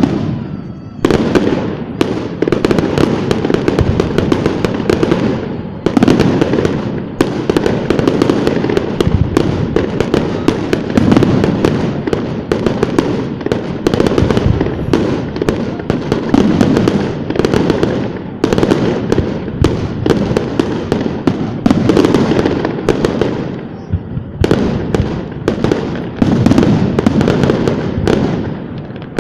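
Fireworks display: a dense, continuous barrage of bursts and crackling, with brief lulls about a second in, around six seconds and near twenty-four seconds.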